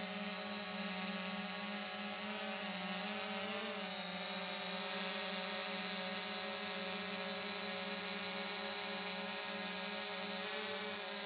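Quadcopter drone hovering close by: a steady propeller whine made of many stacked tones, its pitch wavering and briefly rising about three seconds in as the drone climbs a little.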